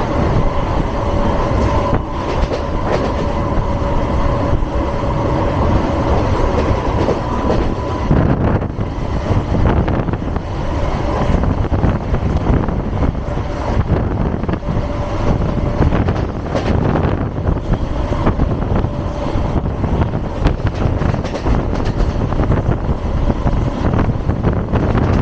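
Train running along the track, heard from on board: a steady rumble of wheels on rails with repeated clicks over rail joints. A thin steady whine sits over it for the first eight seconds or so.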